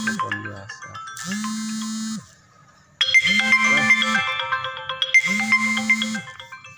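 Electronic melody of bright chiming tones over a low note that repeats about every two seconds; it breaks off briefly about two seconds in and starts again.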